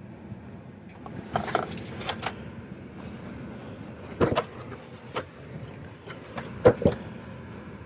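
Clicks and light knocks from handling a 1:18 diecast Mini Cooper S model and its box: a cluster of small clicks a little over a second in, a sharper knock about four seconds in, and the loudest, a double knock, near the end. A steady low hum lies under it.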